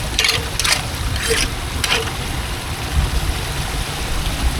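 Quick repeated splashes in floodwater, about two a second, stopping about two seconds in, over a steady low rumble of moving water.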